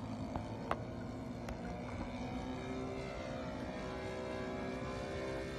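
Four-stroke gasoline engine (NGH GF38) of a radio-controlled model airplane in flight, a steady drone, with a few light clicks in the first second and a half.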